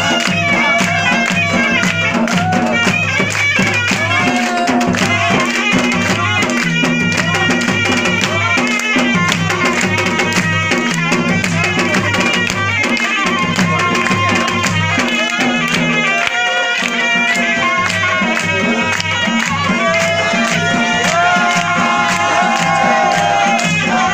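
Live Chitrali folk dance music: a drum beating a steady, fast rhythm under a wavering melody line, with the crowd clapping along.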